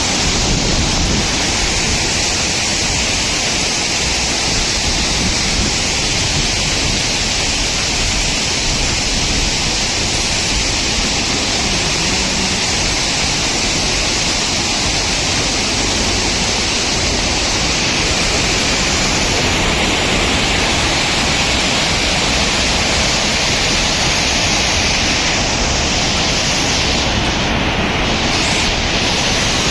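Tirathgarh waterfall's falling water: a loud, steady rushing noise with no breaks.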